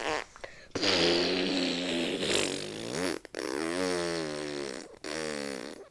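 Mock fart noises: a long buzzing, wavering one starting about a second in, a shorter one after it, and a third starting near the end.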